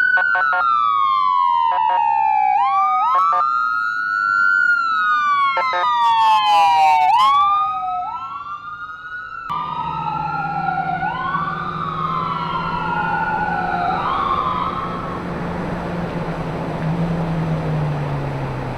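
Emergency vehicle sirens wailing, two of them overlapping, each sliding slowly down in pitch and then sweeping quickly back up. About halfway through the sound changes abruptly to a fainter siren that dies away over a steady low engine drone.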